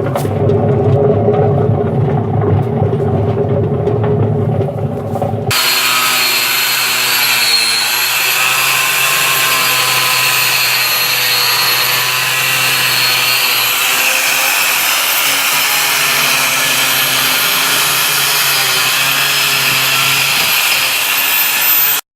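Washing machine drum spinning with a loud, low rumble from a worn drum bearing, like an airplane. After about five seconds this gives way abruptly to a power tool running steadily with a high, hissing whine, which cuts off near the end.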